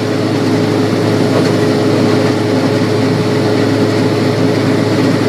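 Heavy farm machinery's engine running steadily under load: a loud, unbroken drone with a constant hum.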